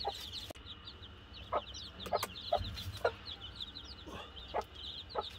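A group of young chicks peeping constantly, many short high chirps overlapping, with a few lower single clucks scattered among them.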